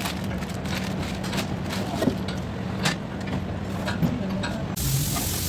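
Workshop noise: a steady low mechanical hum with scattered clinks and knocks, then a loud hiss like a spray starting near the end.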